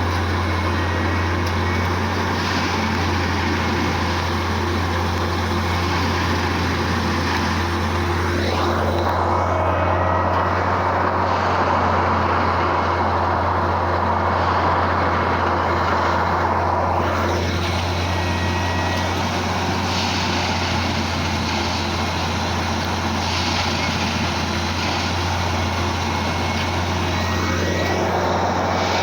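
Railway track maintenance machine running with a steady low engine hum and broad mechanical noise, the noise growing harsher from about nine to seventeen seconds in.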